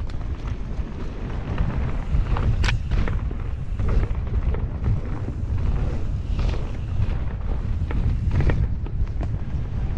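Mountain bike rolling fast over a dirt and gravel track, with a steady low rumble of wind buffeting the microphone and scattered sharp clicks and knocks from the tyres and bike rattling over the ground, two of them louder, a few seconds in and near the end.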